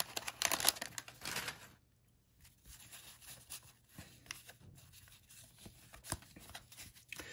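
Waxed-paper wrapper of a 1989 Topps football card pack crinkling and tearing as it is pulled open, for about the first second and a half. Then much fainter rustling and light clicks as the cardboard cards are slid apart in the hands.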